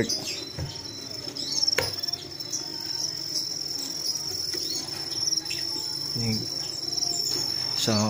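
Farmed crickets in a rearing box chirping in a steady, high, pulsing trill. A single knock sounds about two seconds in.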